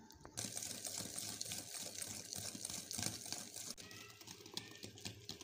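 Wire whisk beating powdered sugar and ghee in a glass bowl: quiet, rapid, irregular clicking and scraping of the wires against the glass as the mixture is creamed.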